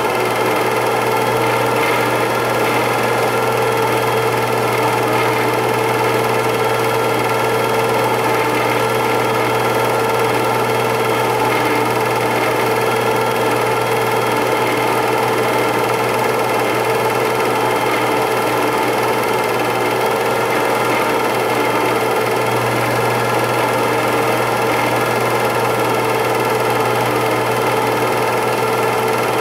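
8mm film projector running: a steady mechanical whir and rattle from its motor and film transport, unchanged throughout.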